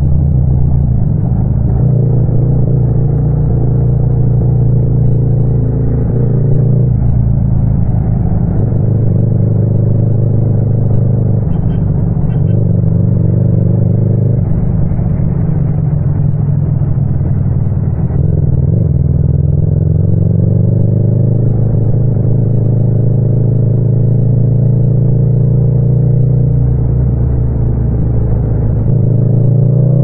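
Yamaha MT-07's parallel-twin engine running while ridden, its pitch moving up and down with throttle and gear changes several times, then rising as it accelerates near the end.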